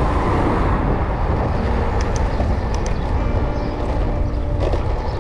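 Steady rush of wind on the microphone and road noise while riding along a road.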